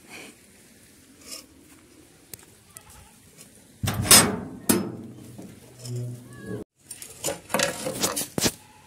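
Metal ladle clanking and scraping against a steel pot of food. It starts about four seconds in, pauses, and comes again near the end.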